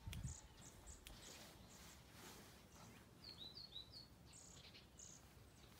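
Faint small-bird chirps: a quick run of short, falling chirps about three seconds in, with a few other brief high calls scattered around it. A low thump at the very start is the loudest thing.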